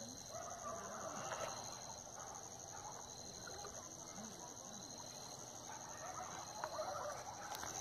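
Faint outdoor night ambience: a steady high-pitched insect trill with a fine pulse, a fainter second chirp repeating about every second and a half, and faint scattered calls underneath.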